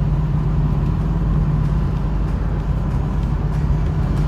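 1972 Chevrolet Nova driving at a steady cruise: a constant low engine drone with road and wind noise, heard from inside the cabin.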